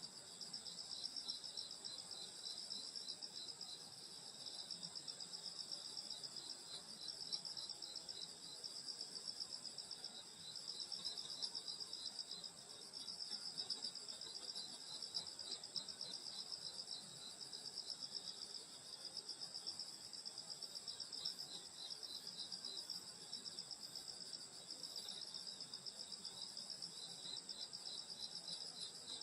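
A steady chorus of grass insects such as crickets, trilling at several high pitches with a fast, even pulse.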